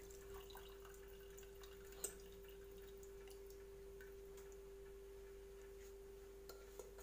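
Very faint hot water trickling and dripping through a metal strainer into rice in a pressure cooker, over a steady faint hum, with a single sharp click about two seconds in.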